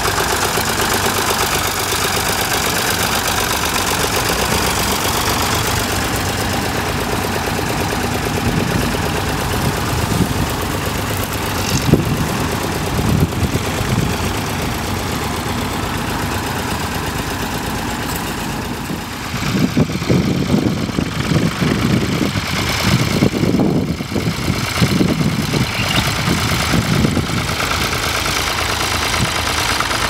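Ford 3000 tractor's three-cylinder engine running steadily while it works with a mounted plough. From about two-thirds of the way in the sound turns uneven, with irregular low rumbling surges.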